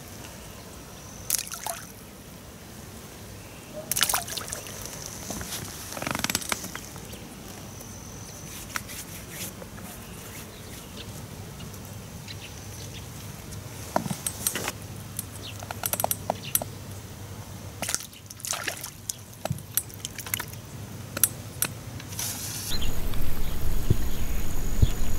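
Rain starting on the water: scattered raindrop ticks and pats that grow more frequent through the second half, then a louder steady noise coming in a couple of seconds before the end. A few longer, louder noises in the first six seconds.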